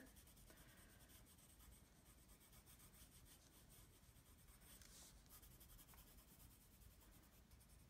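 Faint scratching of a dark gray Prismacolor Premier colored pencil on paper as it shades in.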